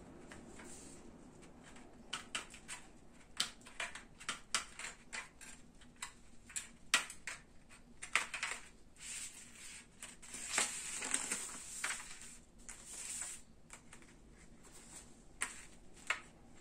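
Hand snips cutting thin metal grill mesh: a long run of irregular, sharp clicks as the strands are snipped, starting about two seconds in, with stretches of scraping rustle between cuts.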